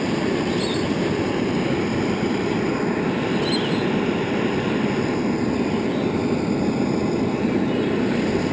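Small metal-melting furnace running, a steady, even rushing noise that does not change.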